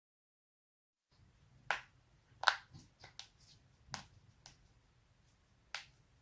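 Joints cracking: a run of sharp pops and clicks starting about a second in, the two loudest close together, then smaller cracks spaced out over the next few seconds.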